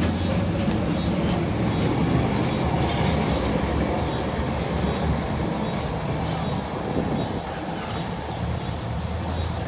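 Vintage-style streetcar running past on its rails and pulling away, a steady low rumble. A high pulsing sound repeats about every three-quarters of a second over it.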